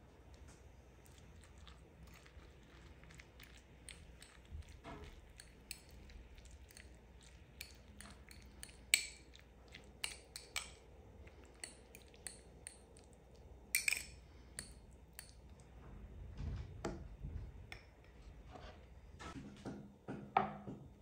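Cutlery clinking and scraping against a plate in irregular light clicks, with a few sharper clinks about nine and fourteen seconds in.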